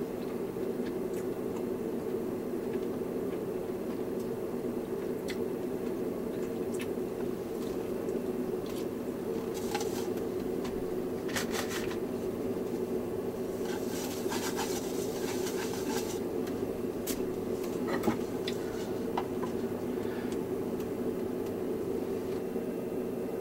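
Steady low fan hum, with small clicks of a fork against a wooden plate and short bursts of rustling as the plate is wiped with a tissue in the middle, and one sharper click near the end.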